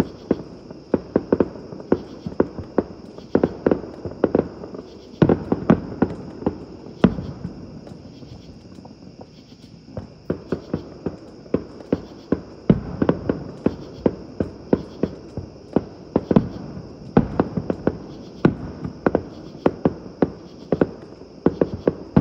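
Fireworks going off in rapid, irregular volleys of sharp bangs, with a short lull about eight seconds in. A steady high chirring of insects runs underneath.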